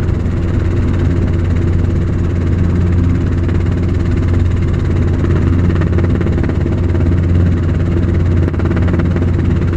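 Steady drone of a helicopter's engine and rotors heard from inside the cabin: a deep hum with a few steady higher tones over it, unchanging throughout.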